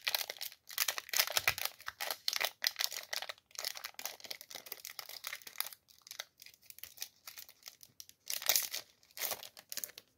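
Foil wrapper of a Yu-Gi-Oh booster pack crinkling and tearing as it is pulled open by hand, a dense run of irregular crackles that eases off for a moment and grows louder again near the end.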